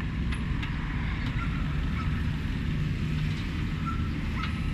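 Steady low rumble of street traffic, with a few light clicks.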